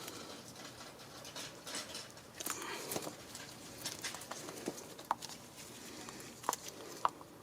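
Faint scattered clicks and light rustling from handling a silicone grease packet and a brake caliper sliding pin while the grease is squeezed out.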